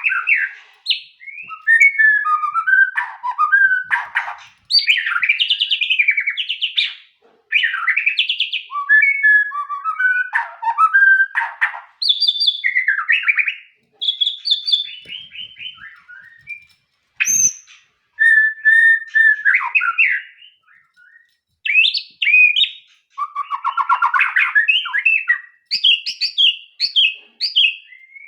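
White-rumped shama (murai batu) singing a long, varied song of loud whistled phrases and rapid trills, with short pauses between phrases. A single sharp knock about two-thirds of the way through.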